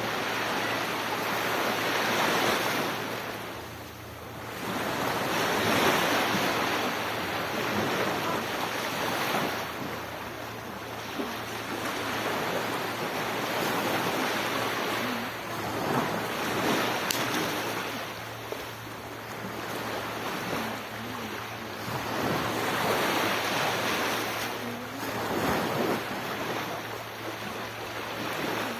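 Sea surf: waves breaking and washing up the shore, the rush swelling and fading every few seconds.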